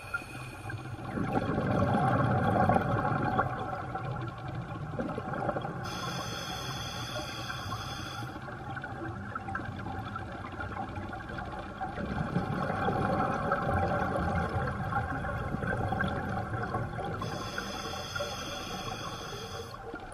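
Scuba diver breathing underwater through an open-circuit regulator: a long rush of exhaled bubbles twice, each followed a few seconds later by a high hissing inhale through the regulator.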